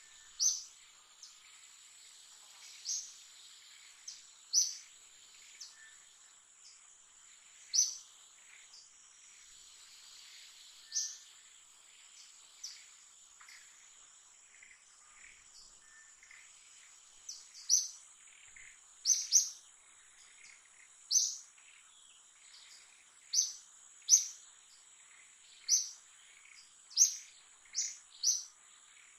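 Forest ambience: a steady high insect drone under short, sharp bird chirps. Each chirp is a quick falling note. They come every few seconds at first, then more often in the second half, some in quick pairs.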